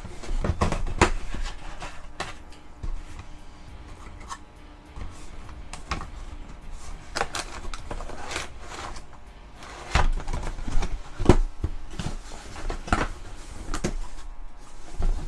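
Hands searching through trading-card packaging: irregular taps, clicks and rustles as the contents are handled, with a few louder knocks near the middle and latter part.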